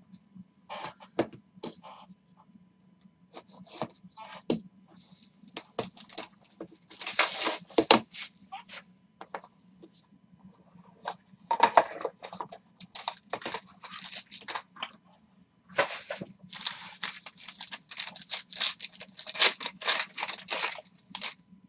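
Plastic wrap and packaging of a Panini Encased trading-card box being torn open and crinkled by hand, in irregular clusters of short tearing and rustling bursts, over a faint steady low hum.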